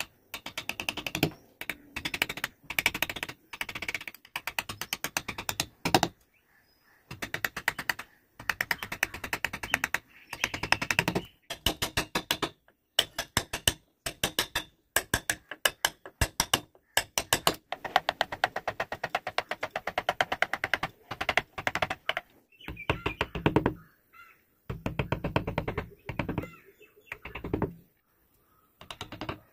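Hand wood-carving chisel and gouge cutting into a wooden relief panel: runs of quick, sharp clicks, many to the second, each run lasting a second or two with short pauses between.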